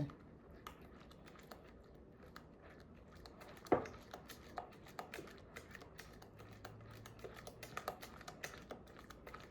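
A utensil clicking and tapping irregularly against a mixing bowl as oatmeal, milk and eggs are stirred together, with one sharper knock a little under four seconds in.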